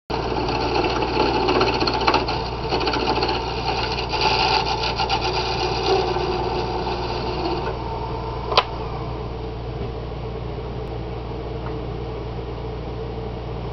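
Wood lathe spinning a wooden pipe blank with a hand-held tool scraping against it, a busy rasping over the machine's low hum. The cutting stops after about seven and a half seconds. A sharp click follows about a second later, then only a steady hum remains.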